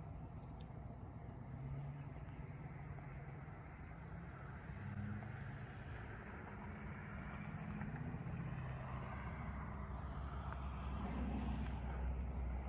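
Low hum of a distant motor vehicle, its pitch drifting slowly and growing louder near the end.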